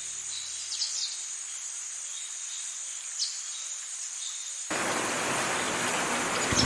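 Steady high-pitched insect chirring, like crickets, with a few short bird chirps. About two-thirds of the way in, a loud even hiss of heavy rain cuts in abruptly.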